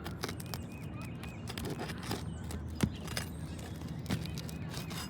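Roof snake working under asphalt shingles: irregular scraping, clicks and knocks as the shingle seal is broken and the shingles are pried up, with a sharper knock about three seconds in and another near four seconds.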